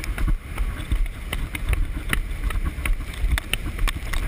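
Strong gusting wind buffeting a GoPro inside its waterproof case, heard as a muffled low rumble that swells and drops, with scattered sharp ticks throughout.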